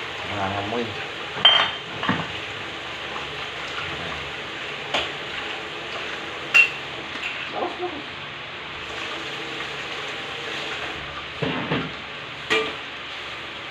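Meat frying in a pan with a steady sizzle. Several sharp clinks and knocks of a utensil and bottle against the pan, the loudest about one and a half seconds in and again about six and a half seconds in.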